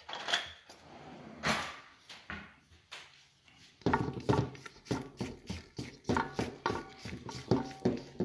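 Spoon and spatula stirring and scraping thick chocolate cake batter against a stainless steel mixing bowl. A few scrapes come first, then from about four seconds in there is a fast run of short scraping strokes, several a second, each with a brief squeak off the metal bowl.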